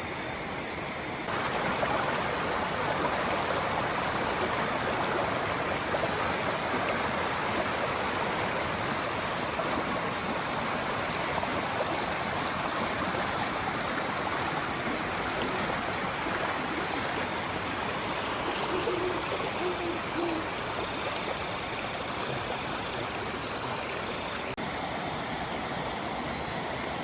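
Forest stream babbling steadily, stepping up in level about a second in, with a brief low call about two-thirds of the way through.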